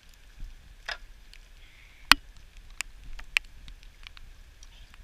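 A few sharp ticks and taps, the loudest about two seconds in, over faint background noise.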